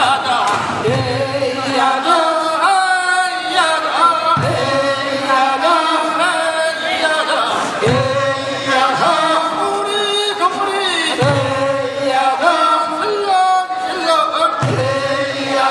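A group of men chanting a Korean fishermen's work song from the Goseong coast, with new phrases starting about every three and a half seconds.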